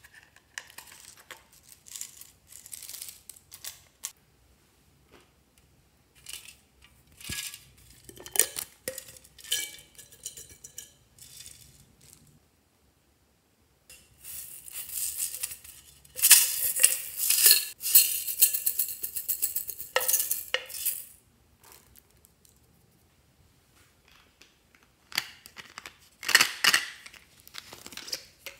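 Small hard plastic pieces and beads clattering and clinking into a glass baking dish in intermittent bursts. The longest and loudest burst comes a little past the middle.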